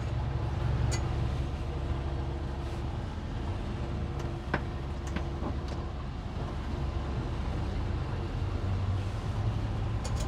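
Boat engine running steadily at low speed under tow, a low rumble with a steady hum that fades out about halfway through.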